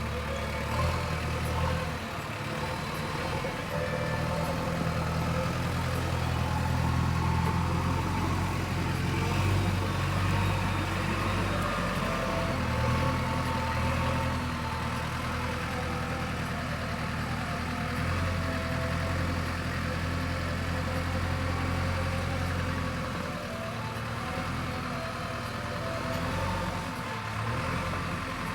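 Backhoe loader's diesel engine running steadily, its level swelling and easing slightly as the machine works.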